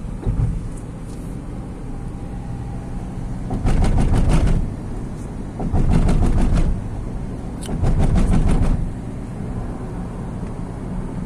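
Steady road and engine noise inside a moving car, broken three times, about two seconds apart, by a second or so of rapid drumming as the tyres run over sets of rumble strips.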